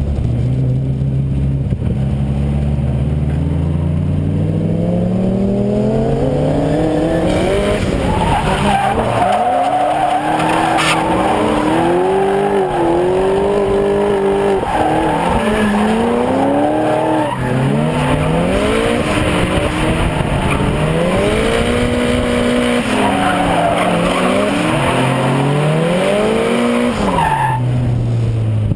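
A drift car's engine pulls hard with the revs climbing, then revs rise and fall again and again under the throttle through a long sideways slide, with tyre squeal and skidding. Near the end the revs drop away. Heard from a camera mounted on the outside of the car.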